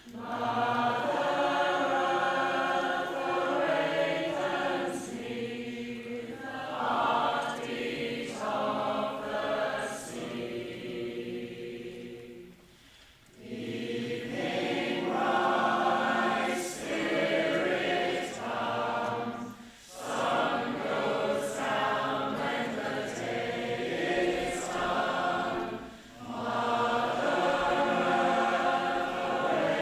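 Women's choir singing a cappella in close harmony, in held phrases with short breaks between them; the longest break comes about 13 seconds in.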